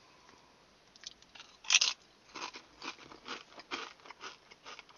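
A person biting into a light, flaky tortilla chip with a sharp crunch about two seconds in, then chewing it with repeated crisp crunches, about two or three a second.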